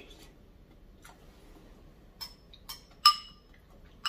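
A spoon clinking against a bowl while the last of a bowl of bakso is eaten: a few light clinks in the second half, the loudest about three seconds in, each with a short ring.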